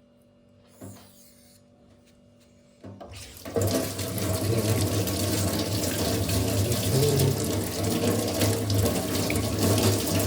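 Water running from a tap, starting suddenly about three seconds in and then running steadily and loudly.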